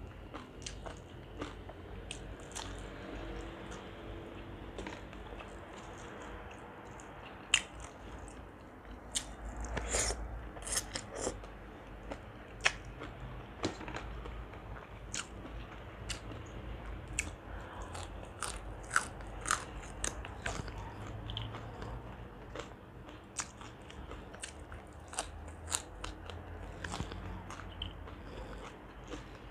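A person chewing food close to a lapel microphone: steady crunching with many sharp mouth clicks and bites scattered throughout.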